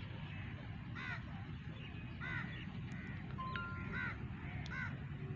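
Crows cawing: about five short, separate caws roughly a second apart, over a steady low rumble.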